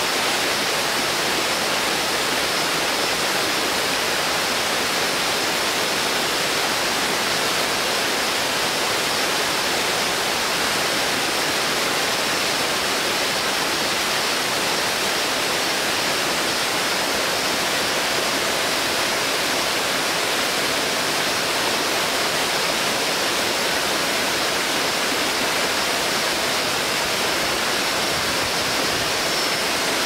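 Small waterfall splashing steadily over rock into a pool: a constant, even rush of falling water with no change over time.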